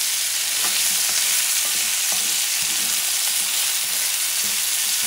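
Diced chayote, onion and bell pepper sizzling in olive oil in a cast-iron skillet, with a steady hiss. A wooden spoon stirs them, scraping and tapping against the pan now and then.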